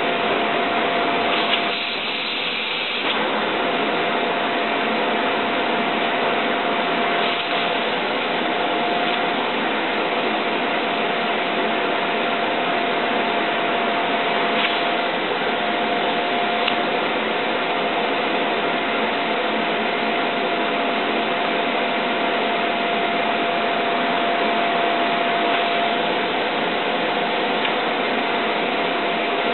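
Vacuum cleaner running steadily, with a constant whine, drawing air through a PVC hose to suck molten solder off an IC's pins. Its sound dips briefly about two seconds in.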